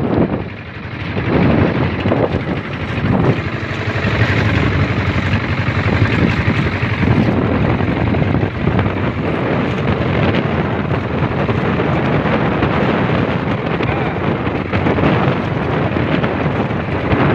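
Wind buffeting the microphone aboard an outrigger boat under way, over the steady noise of its engine and the water.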